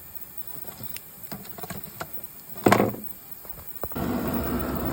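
Vevor diesel air heater starting up: a few faint clicks and one sharp click, then about four seconds in its blower and burner come up to a loud, steady running noise with a faint whine.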